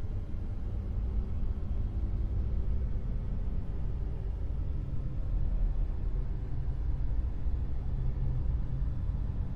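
Dark noise sound effect: a steady, deep rumbling noise, strongest in the low bass, with only a faint hiss above it.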